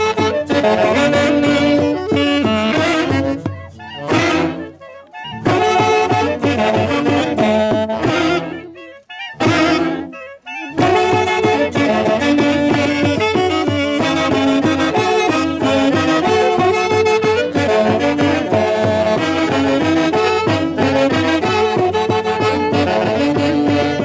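A section of saxophones playing a Peruvian santiago festival tune together in close harmony. The playing breaks off briefly twice, about four seconds in and again about eight to ten seconds in, before carrying on.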